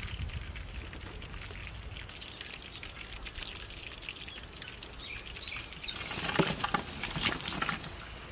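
Chicken pakora frying in hot oil: a steady crackling sizzle of many fine pops. It gets louder and busier about six seconds in, with some sharper knocks.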